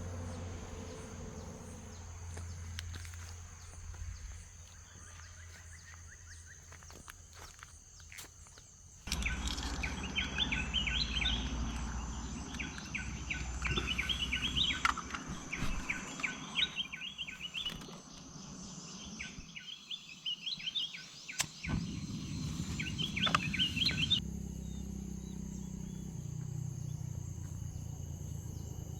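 Forest morning ambience: insects keep up a steady high-pitched drone, and birds chirp busily in short repeated calls through the middle of the stretch.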